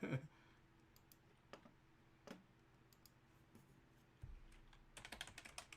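Near silence with a few scattered clicks, then a computer keyboard being typed on rapidly in the last second or so.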